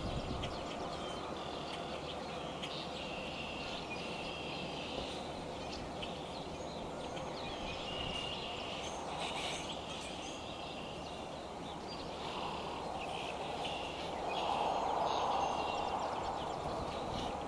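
Steady hiss of a rain shower, with a bird in the background giving short high calls again and again. About fourteen seconds in, the hiss grows louder for a few seconds.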